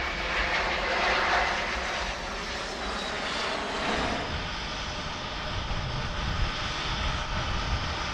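Fixed-wing aircraft engines running: a steady rushing noise with a faint high whine, swelling a little about one second and four seconds in.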